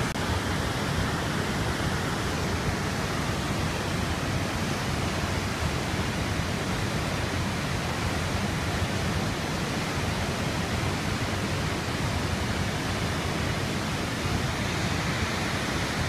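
Tall waterfall pouring down into its pool: a steady, even rush of falling water.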